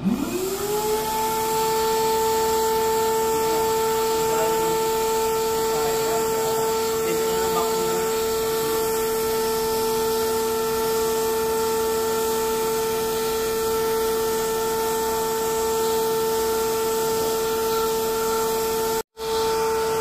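Vacuum cleaner switched on: its motor whine rises in pitch over about a second as it spins up, then runs steadily with a high hum over a rushing hiss as the hose draws dust off blue mesh air-conditioner filter pads. The sound cuts out for a moment near the end.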